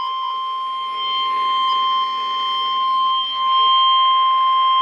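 Weatheradio Canada's 1050 Hz warning alarm tone, one steady unbroken tone that gets somewhat louder about three seconds in. It is sent as a routine test of weather radio receivers' tone alarm feature.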